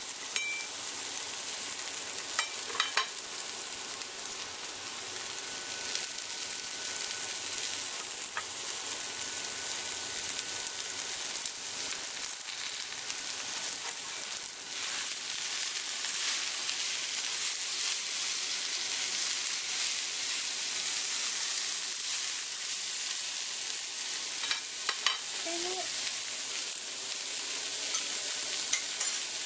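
Vegetables sizzling steadily in a hot frying pan as they are stir-fried, with a few sharp clacks of the utensil against the pan.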